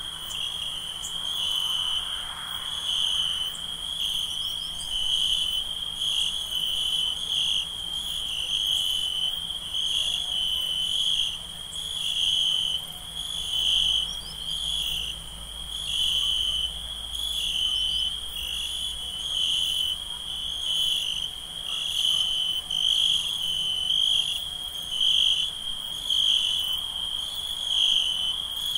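Night ambience of crickets chirping: a steady high trill, with other insects pulsing in an even rhythm that swells about every second and a half.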